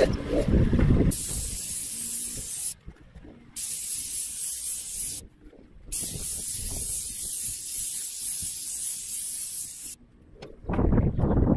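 Airless paint sprayer gun spraying undercoat: a steady high hiss in three long stretches, cut off briefly twice as the trigger is let go. A louder low rumbling noise comes before the spraying and again near the end.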